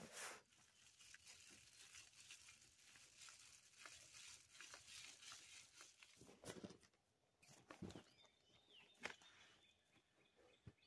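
Faint rustling of nylon tent fabric and a sleeping pad being handled and smoothed, with a few soft thumps.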